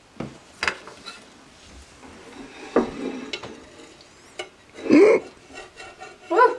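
Metal spatula clinking and scraping on a flat-top griddle, with a few sharp clicks over the faint sizzle of cooking batter. Two short pitched whines, about five seconds in and near the end, are the loudest sounds.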